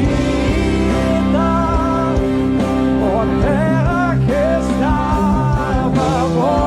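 Slow worship music: steady held chords underneath and a melody line that slides and wavers between notes, with no words.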